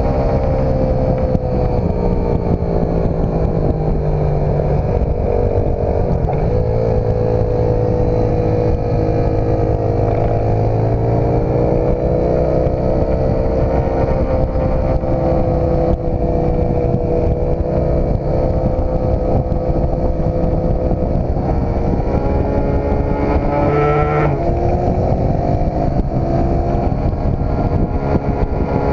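Dirt bike engine running at a steady cruise while the bike is ridden, its pitch wandering gently up and down, over a constant low wind rumble on the bike-mounted camera. Near the end the revs climb briefly, then drop sharply.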